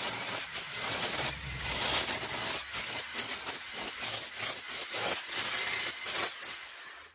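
Makita electric demolition hammer chiselling into concrete rubble in a hole cut through a concrete slab, a dense rattling hammering with sharp knocks. It stops about six and a half seconds in.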